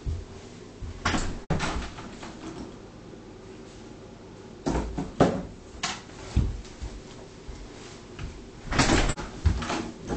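A wooden interior door being handled: a series of irregular knocks and bumps as it is opened and shut. There is a cluster about halfway through and a longer bump near the end.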